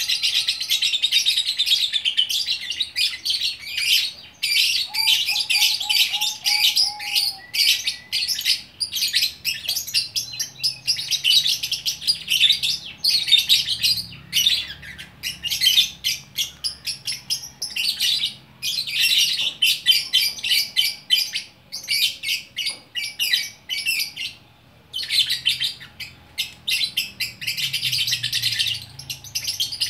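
Lovebird singing its long chatter song: a continuous run of rapid, high-pitched chirps and trills, with one short break about three quarters of the way through.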